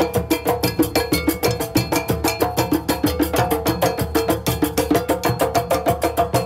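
Live hand-drum ensemble, djembes struck with bare hands, playing a fast, even rhythm, with a repeated pitched note ringing over the drums.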